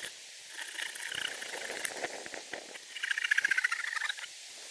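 Hand saw cutting a log: two rasping strokes of rapid ticks, one about a second in and a louder one about three seconds in.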